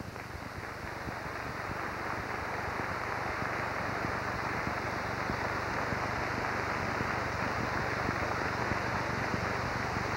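Large auditorium audience applauding, swelling over the first couple of seconds and then holding steady.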